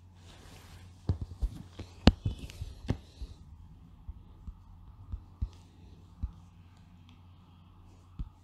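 Steady low hum with scattered sharp clicks and knocks, thickest in the first three seconds and loudest about two seconds in, with a few more spread through the rest.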